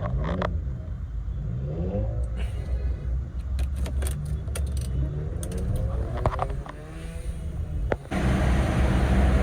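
Car engine revving up and easing off several times over a steady low rumble, with scattered clicks and knocks. About eight seconds in, a louder rushing noise sets in suddenly.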